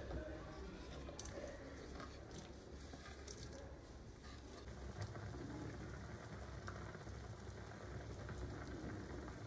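Cubes of food slid off a wooden cutting board into a pan of simmering broth, with a few light plops and knocks in the first few seconds, then the broth bubbling steadily at the boil.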